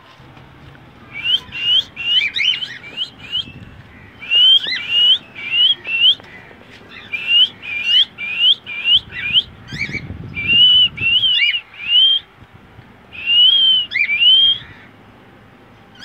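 Cockatiels whistling: a run of short, rising whistled notes, several a second, in phrases of a few seconds with brief pauses between them.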